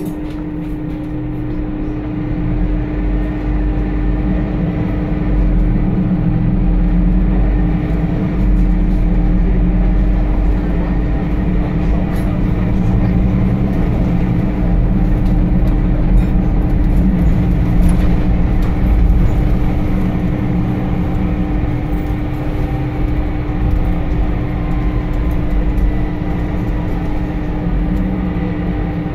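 Scania compressed-natural-gas bus engine and drivetrain, heard from inside the saloon of a moving Enviro 300 single-decker: a deep low rumble with a steady hum. It grows louder over the first few seconds as the bus pulls harder, then eases off near the end.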